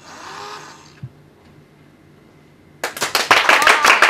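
Hands clapping in applause, starting suddenly near the end, fast and dense. Before it, a brief soft hiss and a single click.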